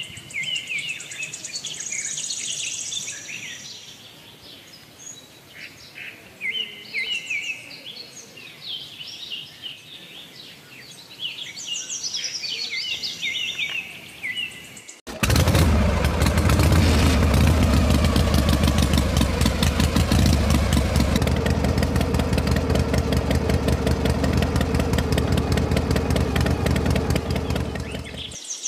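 Birds chirping, then a sudden cut about halfway through to the small motor of a homemade toy diesel-engine water pump running loudly and steadily with a fast, even rattle. The motor stops just before the end.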